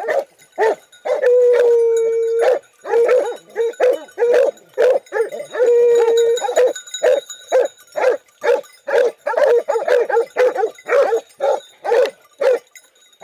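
Boar-hunting dogs baying at a wild boar held at bay: a steady run of short barks, two or three a second, broken twice by a long drawn-out howl, about a second in and again about five and a half seconds in.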